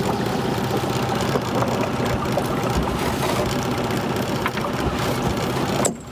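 Dinghy's outboard motor idling steadily.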